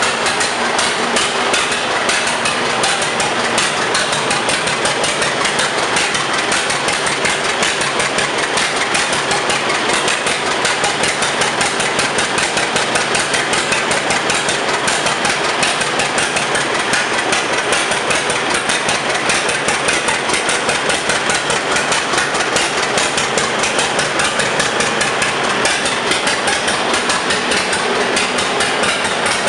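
1925 John Deere Spoker D tractor's two-cylinder engine running steadily at idle, a rapid, even popping beat.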